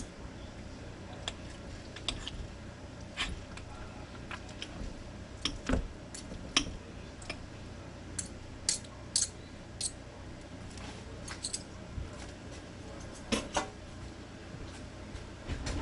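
Utensils clicking and scraping against a dish in short, irregular ticks as cooked chicken is shredded.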